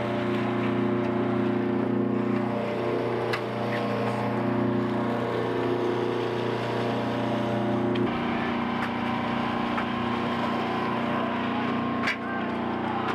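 Sportfishing boat's engine running steadily with a drone of several even tones; about eight seconds in its note changes abruptly and settles lower. A couple of sharp knocks stand out, one near the end.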